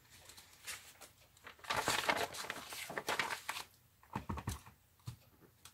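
A sheet of paper rustling as it is slid and handled on the work mat, then a few light knocks as a clear acrylic stamp block is pressed onto an ink pad.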